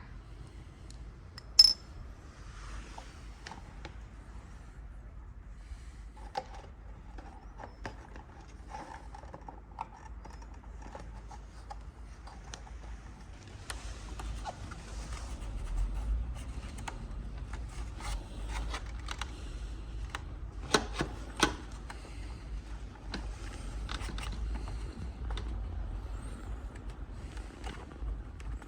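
Hand tools and small metal parts clinking, tapping and scraping during work on a motorcycle's chain guard mounting, with one sharp, ringing metallic clink about two seconds in.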